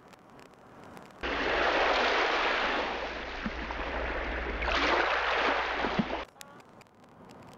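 Sea waves washing in: a loud rushing that starts abruptly about a second in, swells twice and cuts off suddenly about six seconds in. Faint car road noise before and after.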